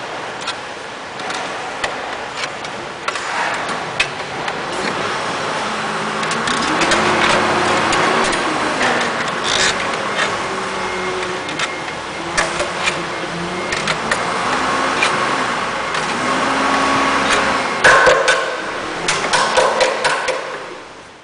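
Thick steel binding wire being twisted tight with pliers, with scraping and many sharp metallic clicks and ticks. A louder flurry of clicks comes near the end.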